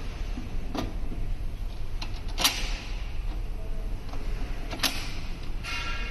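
Sharp metal clicks as a hanging bar is locked onto an LED display cabinet: a light click about a second in, louder clacks at about two and a half and five seconds, and a short ringing rattle near the end, over a steady low hum.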